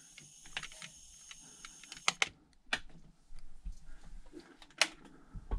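A few scattered sharp clicks and small knocks of handling, the clearest about two, three and five seconds in.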